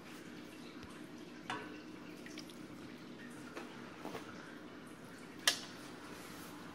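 Syrup bubbling and crackling on a hot, freshly cooked künefe in its pan: a steady low hiss with scattered sharp ticks, the loudest about five and a half seconds in.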